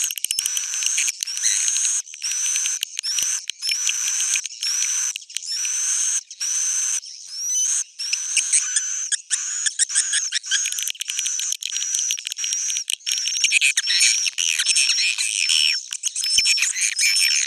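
Swiftlet call recording: rapid high twittering chirps in quick bursts, packing into a near-continuous chatter after about eight seconds. It is the old-style swiftlet lure sound played in swiftlet houses to draw the birds in to roost.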